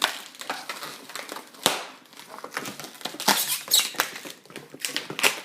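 Latex modelling balloons squeaking and rubbing against each other in irregular bursts as they are twisted and pushed together by hand.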